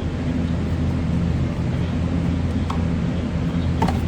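Steady low machine hum, with a few light clicks about two-thirds of the way in and near the end.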